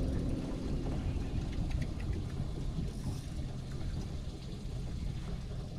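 A steady low rumble with a few faint ticks, but no clear event.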